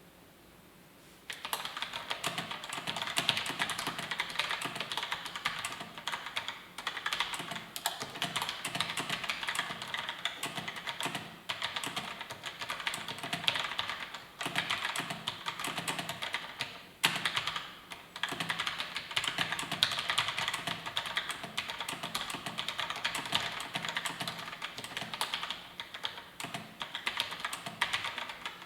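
Fast, continuous typing on a SteelSeries Apex M800 mechanical keyboard with SteelSeries QS1 switches: a dense clatter of keystrokes that starts about a second in.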